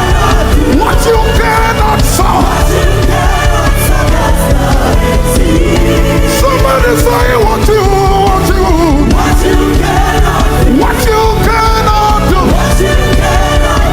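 Loud live gospel worship music: a band with heavy drums and bass under voices singing.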